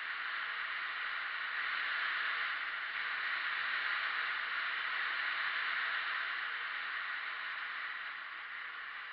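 Skis sliding over groomed, hard-packed snow: a steady scraping hiss that swells in the middle and eases near the end.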